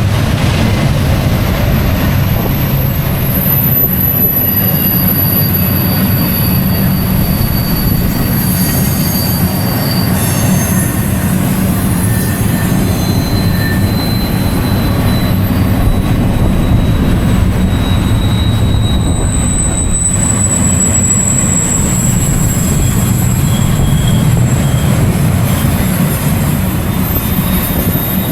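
BNSF freight train climbing slowly up the grade: a steady low rumble of the rolling train, with thin high-pitched wheel squeals coming and going over it.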